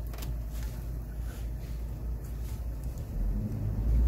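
Compressed air fed through a hose-and-gauge chuck into a motorcycle's rear tyre, heard as a steady low rumble. A louder hum comes in about three seconds in.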